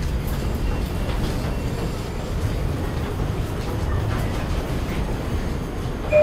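R142 subway train standing in the station with its doors open, giving a steady low rumble with a few faint clicks. Right at the end the door chime starts, the loudest sound here.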